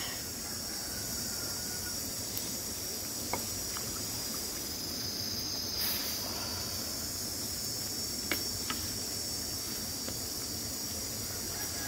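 A steady, high-pitched chorus of insects, with a few sharp pops from the crackling wood fire under a simmering wok.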